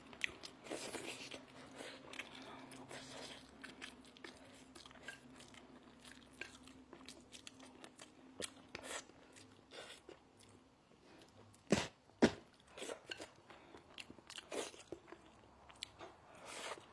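A person eating close to the microphone: irregular crunching and chewing with small smacks, with two sharp louder clicks about twelve seconds in.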